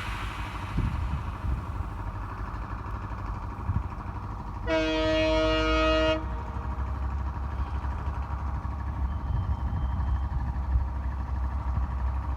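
Train running with a steady low rumble; about five seconds in, the locomotive sounds its horn once, a chord-like blast lasting about a second and a half.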